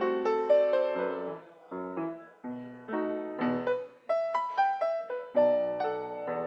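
Grand piano played solo: a melody over chords, each note struck and left to ring and fade, with short breaks between phrases about two and four seconds in.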